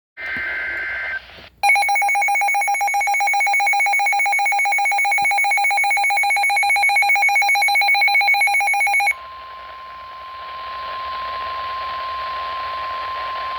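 Emergency Alert System broadcast alert. It opens with a short screech of digital SAME header data, then a brief gap, then about seven seconds of the loud, harsh two-tone EAS attention signal. That cuts off into a quieter steady single-pitch weather-radio warning tone over radio hiss, which introduces a severe thunderstorm warning.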